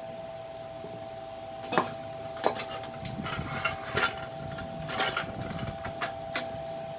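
Titanium exhaust pipe sections knocking and clinking together as they are handled and slid into each other, about six short sharp metallic taps spread over the last five seconds, over a steady high background hum.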